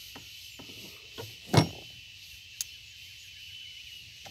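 A single sharp knock of fishing gear against the aluminium boat about one and a half seconds in, then a short click a second later, over a steady high-pitched drone.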